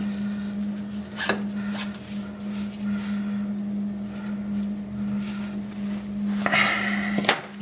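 Pliers working a steel cotter pin out of a tractor linkage pin: a few light metal clicks, then a scrape and a sharp metallic click near the end. A steady low hum runs underneath.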